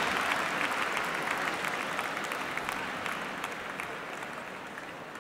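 Applause from a crowd, many hands clapping, fading out steadily.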